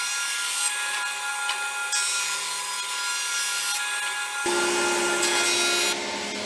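Planer thicknesser running as a jointer, its motor and cutter block whining steadily while a sapele board is fed over the knives. The hiss of the cut swells and eases as the board passes over the cutter block. About two-thirds of the way through, the sound shifts abruptly and a deeper hum joins in.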